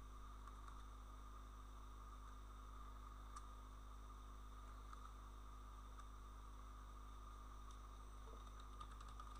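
Near silence: a steady low electrical hum from the recording setup, with a few faint clicks.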